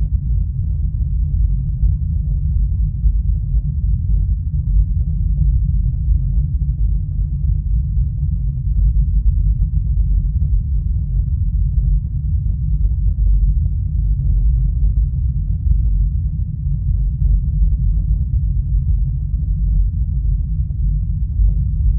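Cinematic deep rumble sound effect: a steady, loud low rumble with no pitch changes or distinct hits.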